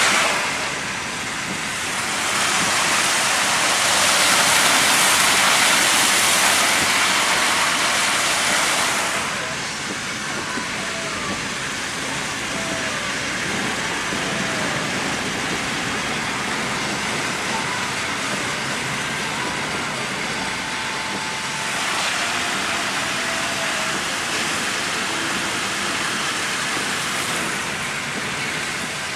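Car driving over a hail- and slush-covered road, heard from inside the cabin: steady tyre and road noise, with a louder hiss from about two to nine seconds in and a smaller rise near the end.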